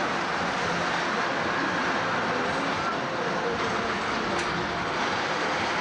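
Steady mechanical rumble of a running fairground ride, with a faint low hum underneath.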